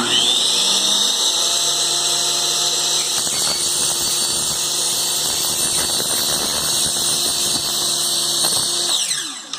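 Electric miter saw motor starting with a rising whine, running at full speed through a cut in a roll of plastic food wrap, then winding down with a falling whine near the end.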